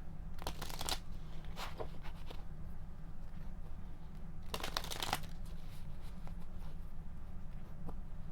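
Tarot cards being shuffled and handled in three short crisp spells, over a steady low hum.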